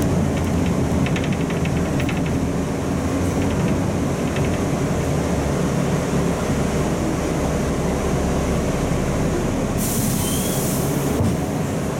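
Volzhanin CityRhythm-12 city bus heard from inside the cabin: steady low engine and running rumble. About ten seconds in there is a burst of hiss lasting just over a second.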